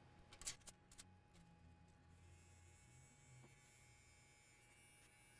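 Near silence: a faint steady low electrical hum, with a few soft clicks in the first second.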